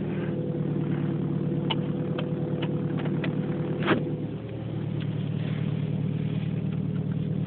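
Vehicle engine running steadily, with about six sharp ticks or clicks over it in the first few seconds, the loudest near the middle, followed by a brief dip in the engine note. The owner suspects these ticks may be an abnormal noise.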